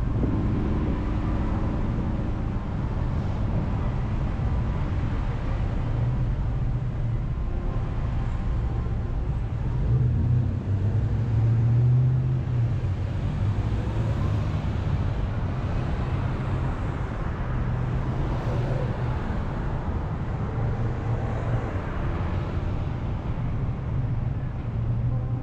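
A car driving on city roads: a steady low rumble of engine and tyres, swelling briefly about ten seconds in.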